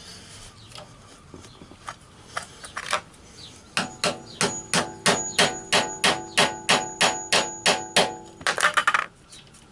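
Light hammer taps on metal, about three a second for some four seconds, each ringing briefly, then a quick flurry of taps: the gear lever being knocked off the motorcycle's splined gear selector shaft.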